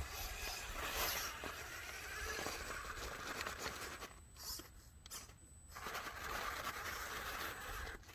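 Axial Capra 4WS RC rock crawler's electric motor and drivetrain whirring as it crawls up a rock pile. The sound pauses for about two seconds near the middle, then resumes.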